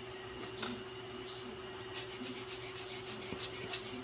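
A small brush and tweezers scrub and scrape a tiny watch-movement part in a metal tin of cleaning solvent: a single tick about half a second in, then a quick run of short scratchy strokes in the second half. A steady low hum sits underneath.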